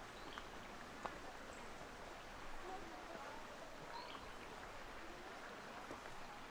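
Faint outdoor ambience: an even hiss with scattered faint chirps and murmurs, and one short click about a second in.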